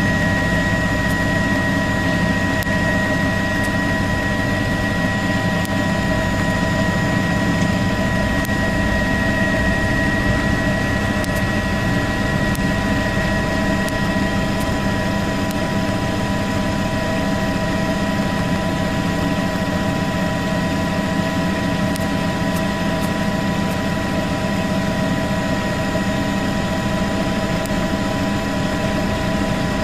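An engine running steadily: a low drone with several constant high whining tones over it, unchanged throughout.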